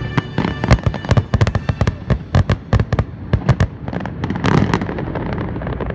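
Fireworks finale barrage: aerial shells bursting in quick succession, dozens of sharp bangs over the first three and a half seconds, then a denser, softer run of bursts near the end.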